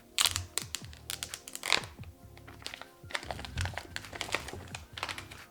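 Quick irregular clicks, taps and rustles of an iPhone 12 Pro Max box being unwrapped and opened by hand, over quiet background music.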